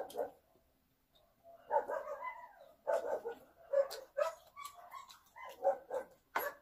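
Repeated short animal calls, about a dozen in quick clusters, with a couple of sharp clicks near the end.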